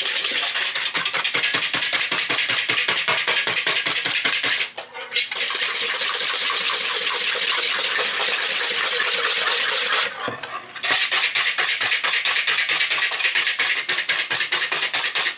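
Wire whisk beating eggs, yolks and sugar to a cream in a mixing bowl: fast, even strokes that rattle and scrape against the bowl, stopping briefly twice. This is the first step of a crème pâtissière.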